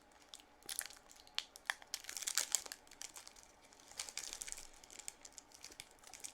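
Sweet wrapper crinkling and tearing in irregular bursts as it is peeled off a sticky sour apple candy that is stuck to it.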